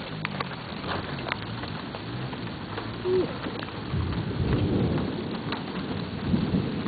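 Rain falling with scattered sharp drop hits, and a low rumble of thunder swelling up about four seconds in and fading out near the end.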